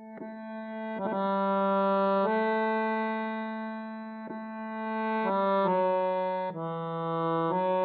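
Concert button accordion (bayan) playing slow sustained chords that change every second or so, the volume swelling and easing with the bellows.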